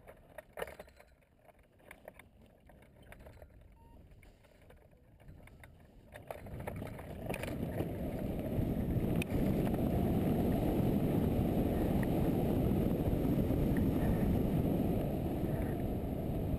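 A few light clicks and knocks, then from about six seconds in a loud, steady rush of wind over the microphone of a camera mounted on a hang glider as it launches off the slope and flies.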